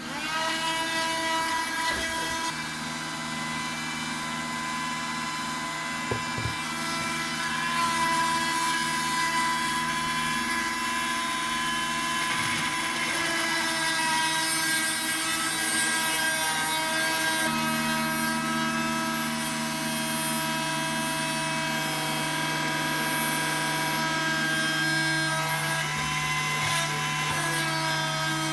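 Dremel-type Parkside rotary tool starting up and running with a steady high whine, a 1.5 mm solid diamond drill bit grinding into a hard agate pebble. Its pitch shifts slightly a few times.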